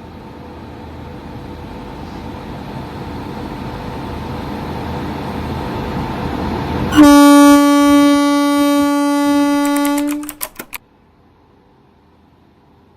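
Electric locomotive's horn (Indian Railways WAP-7) sounding one long, loud, steady blast of about three seconds, followed by a few short clipped toots. Before it, the rumble of the moving train grows steadily louder. Soon after the toots everything drops off suddenly.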